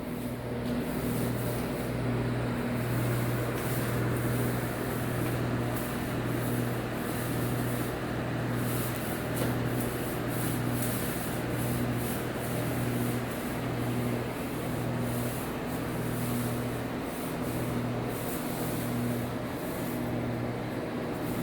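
Paint roller rolling paint onto a wall, a continuous sticky rubbing with irregular strokes, over a steady low hum.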